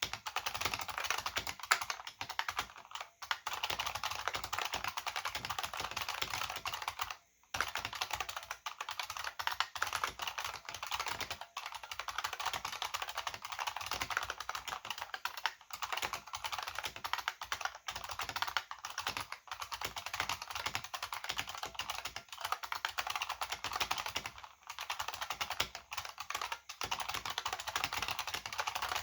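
Continuous fast typing on an AT&T KBD 305B-AA keyboard, its buckling-spring switches clicking under two-part PBT dye-sublimated keycaps. Typing stops briefly just after seven seconds in.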